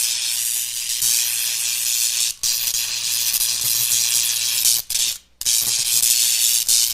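Electrical crackling and hissing, like sparking or arcing, over a faint low hum. It is broken by short gaps about two and a half seconds in and twice around five seconds, then cuts off suddenly at the end.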